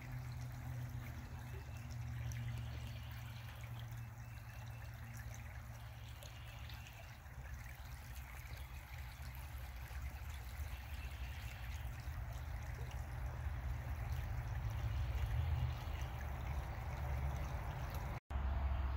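Shallow, clear creek trickling and gurgling over a rocky bed: a steady water sound with a low rumble underneath.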